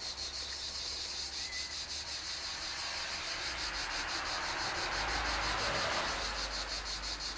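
Insects chirring steadily outdoors: a high-pitched, rapid and even pulsing that never stops. A soft rushing noise swells and fades about five seconds in.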